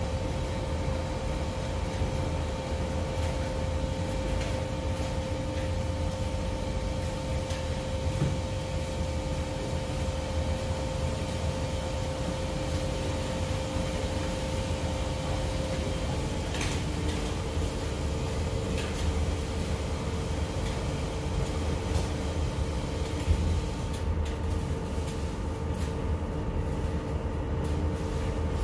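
Coin-operated tumble dryer running with clothes tumbling in the drum: a steady low rumble with a constant motor hum, whose pitch steps slightly lower about halfway through.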